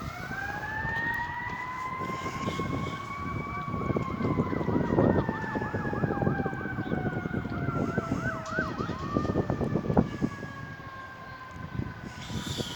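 Emergency vehicle sirens: one slow wail gliding up and then gradually down in pitch, joined for several seconds by a second siren in a fast yelp of about three cycles a second, over a low rumble of engines. A sharp knock comes about ten seconds in.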